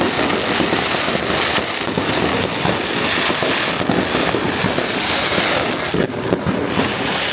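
Fireworks crackling: a dense, continuous rattle of many small pops.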